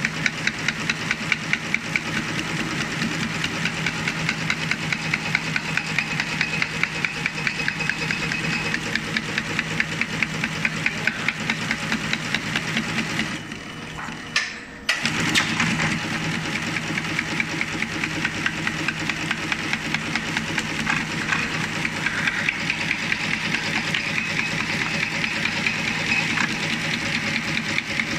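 Broom brush tufting machine running, its tufting head punching bristle tufts into a plastic broom block with a fast, even rhythm of mechanical strokes over a steady hum. The sound drops away briefly about halfway through, then the machine's rhythm picks up again.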